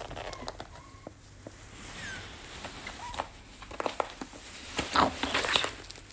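Fabric rustling and scratching of claws as a pet skunk and then an otter clamber over a person's lap and jacket, with a few faint short chirps in the first half. The rustling is densest and loudest about five seconds in.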